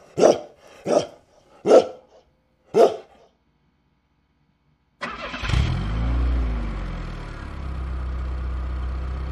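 A dog barking four times, about a second apart. After a short pause, a car engine starts, revs up and back down once, then runs steadily.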